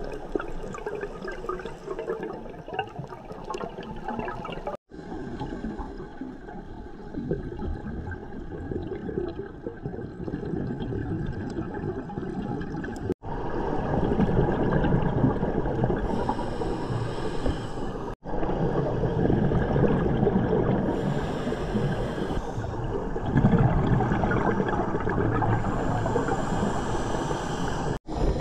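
Underwater recording of a scuba diver's regulator: continuous bubbling and gurgling from exhaled air, growing louder in surges about halfway through. It drops out briefly several times.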